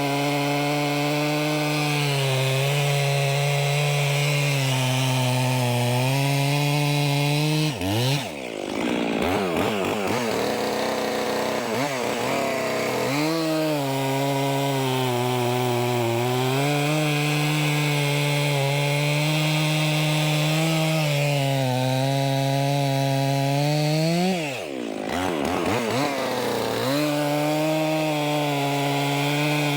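Stihl MS 400 C two-stroke chainsaw running at full throttle through logs, its pitch sagging a little under the load of the cut. Twice the throttle is let off and the engine falls back towards idle for a few seconds before revving up again into the next cut.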